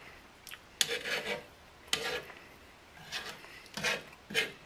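A metal utensil scraping ground beef across a flat griddle, in a series of short scrapes about once a second.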